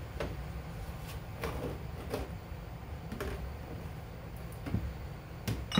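Frying pans and kitchenware being handled, giving a few scattered light knocks and clatters over a low steady rumble.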